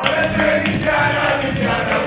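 Karaoke: a backing track playing with a voice singing over it.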